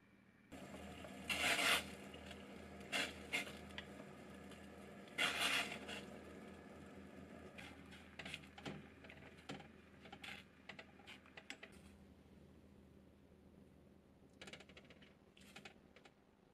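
Kitchen handling sounds while cooking oden: a few louder scraping, sloshing bursts as daikon pieces go into a pot of water, then light clicks and taps of wooden chopsticks against a stainless steel pot as fish cakes are moved around in water.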